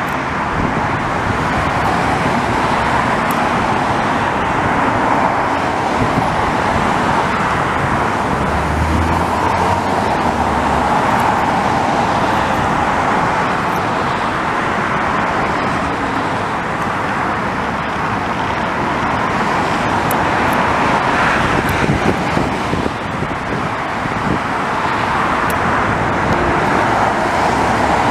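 Steady road traffic noise, a continuous rushing roar of passing cars that swells and eases slightly without stopping.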